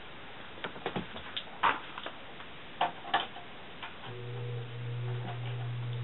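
Lakewood S-23 box fan: several sharp clicks as the top of the fan is handled and its rotary switch is worked, then about four seconds in the motor starts with a steady low hum and rising air noise as the blades spin up.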